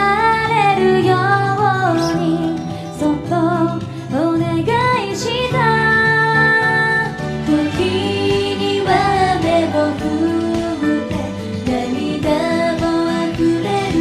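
A female voice singing a slow Japanese pop ballad over instrumental backing.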